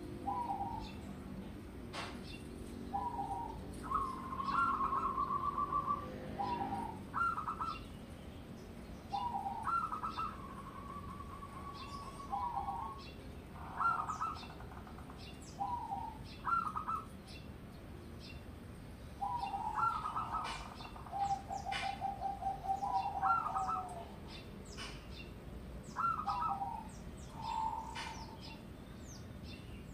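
Zebra dove (local perkutut) cooing in a series of short phrases of rolling, trilled coos with brief pauses between them. Short high chirps are scattered through it.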